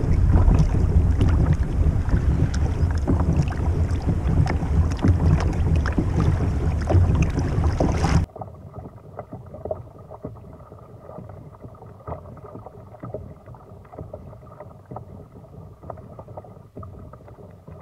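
Kayak moving over the sea, with wind buffeting the microphone and water splashing and crackling against the hull. About eight seconds in the sound cuts suddenly to a much quieter wash of water with faint small knocks.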